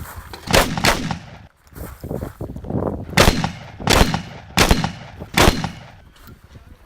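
Shotgun fired six times in quick succession: two shots close together near the start, then four more roughly a second apart, each followed by a short echo.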